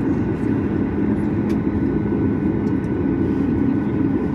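Steady cabin drone of a Boeing 737 MAX 8 on the ground, its CFM LEAP-1B engines at low power, heard from inside the cabin: a low rumble with a few thin, steady whining tones above it.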